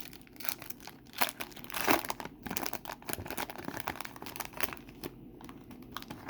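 A trading-card pack wrapper crinkling as it is torn open and handled: a run of irregular crackles, the loudest about two seconds in.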